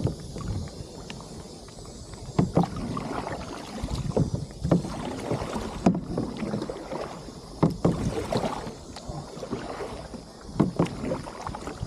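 Kayak paddling: the paddle dipping and splashing in the water every second or two, with sharp knocks among the strokes.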